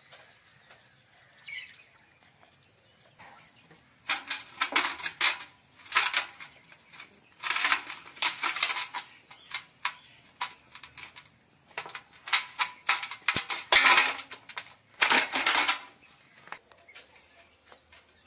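Knife cutting up a whole plucked country chicken in an aluminium basin: several bursts of dense clicking and crackling, each a second or so long, from about four seconds in until near the end.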